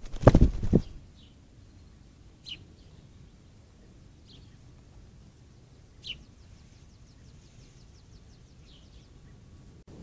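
Mourning dove beating its wings in a bird bath: a burst of several quick wing flaps and splashing in the first second. After it come single short high bird chirps, a second or two apart.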